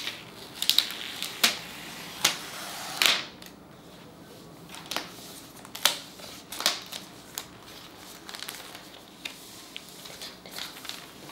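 Thin plastic wrap being peeled and handled around a laptop: sharp crinkles and clicks, several close together in the first three seconds, then scattered and fainter.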